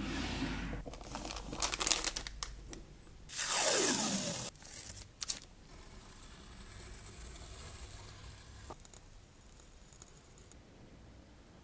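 A drawer sliding open with rummaging and clicks. Then, about three seconds in and loudest, masking tape is pulled off its roll with a tearing rasp about a second long that drops in pitch. After that come faint scrapes of a hobby blade cutting the tape along a steel ruler.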